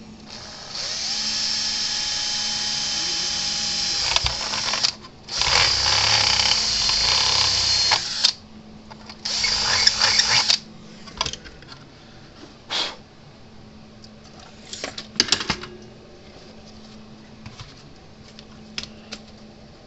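Electric drill run in three bursts to drill a small hole. The first burst speeds up at the start, and the second, the loudest, sounds as if the bit is under load. Short clicks and knocks of tool handling follow.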